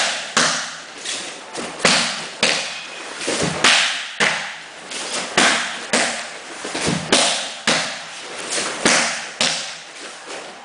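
Fast series of punches and kicks smacking into a held kick shield, about two strikes a second, each a sharp slap with a short echoing tail in a vaulted room.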